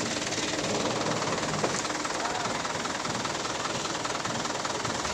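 Diesel engine of a heavy wheeled machine running steadily, a dense even rattle.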